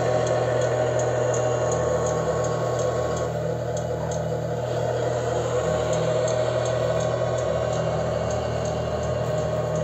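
1/14-scale RC Scania R730 truck running as it drives and reverses: a steady low mechanical hum with a faint high ticking about twice a second.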